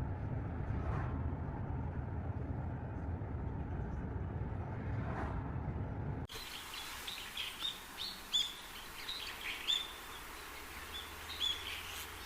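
A steady low rumble for about six seconds, then an abrupt change to songbirds chirping and singing in short repeated calls over a soft outdoor hiss.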